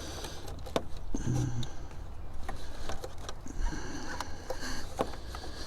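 Light handling noise: scattered small clicks and soft rustling as hands move among the engine-bay hoses, with a brief hum from the man's voice about a second in.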